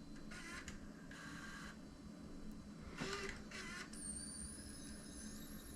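Panasonic AG-HVX200 camcorder's tape transport loading and threading a DVCPRO cassette: several short spells of faint small-motor and gear whirring, then a thin high whine near the end. The loading doesn't sound right.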